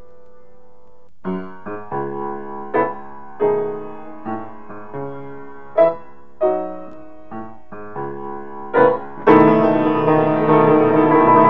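Solo piano music on the soundtrack. A held chord dies away, then single notes and chords are struck one at a time, about one a second, until a louder, fuller passage begins near the end.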